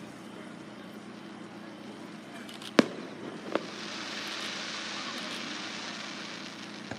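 Aerial firework shell bursting with a sharp bang nearly three seconds in, followed by a smaller bang a moment later. Then comes a high hissing crackle that lasts about three seconds.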